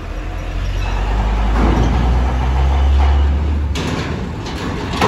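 Light box truck driving off a ferry ramp onto the steel dock grating, its engine a deep rumble that builds and then falls away suddenly about four seconds in, followed by clanks of the wheels over the steel ramp plates.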